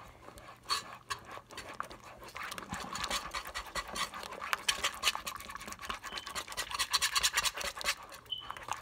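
Metal wire whisk beating a thick white sauce in a nonstick pan: a quick rhythmic swishing, with the wires clicking against the pan. It is sparse at first and gets busier about two and a half seconds in.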